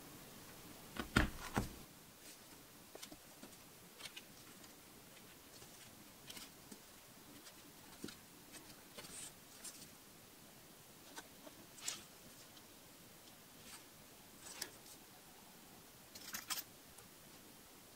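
Light handling sounds of leatherwork on a cutting mat: a few sharp clicks about a second in, then scattered faint taps, ticks and scrapes as leather, a tape measure and a marking awl are moved and set down.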